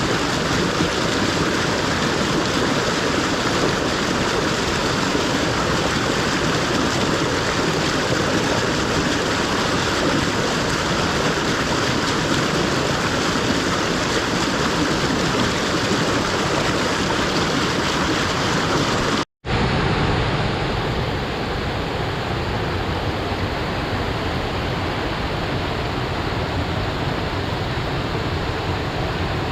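Korkeakoski waterfall rushing: steady water noise. It cuts out for a moment about two-thirds of the way through, then resumes slightly quieter and duller.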